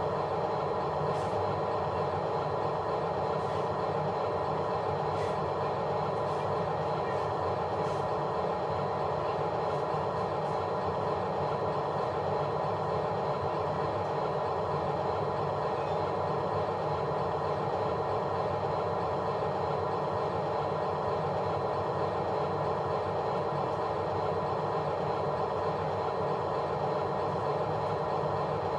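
Steady mechanical drone from a running machine, unchanging throughout, with a few faint clicks in the first several seconds.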